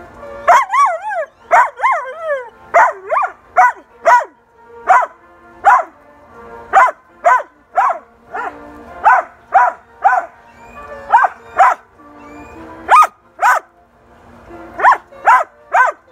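German Shepherd puppy barking over and over, short loud barks about every half second, the first few yelping with a wavering rise and fall in pitch, with a short break near the end. Faint music plays steadily underneath.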